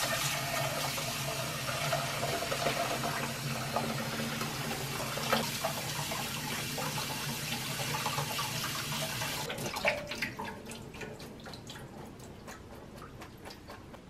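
Kitchen tap running into a stainless-steel sink and pot while cooked buckwheat noodles are rinsed in a mesh strainer. The tap shuts off about nine and a half seconds in, followed by a patter of drips and small splashes that fades out.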